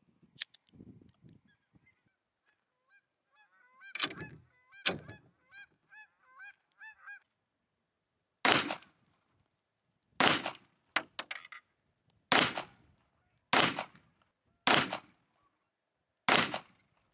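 Beretta Model 1934 pistol clamped in a vise and fired remotely by a pull cord: six shots one to two seconds apart from about eight seconds in, each with a short ringing echo. Earlier, two sharp cracks about four seconds in are followed by a few seconds of birds calling repeatedly.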